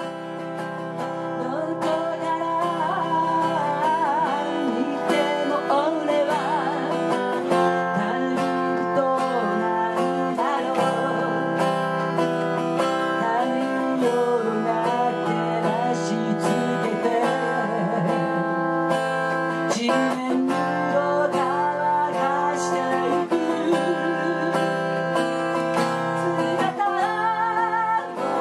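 Acoustic guitar strummed in a steady rhythm, with a woman singing over it into a microphone. The sound fades in over the first couple of seconds.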